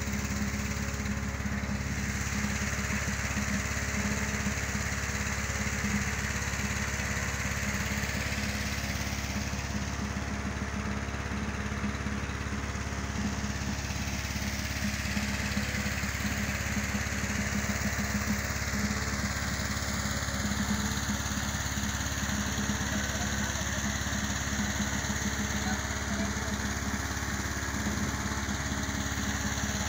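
Petrol-engine inflator fan running steadily, blowing cold air into a hot-air balloon envelope during cold inflation.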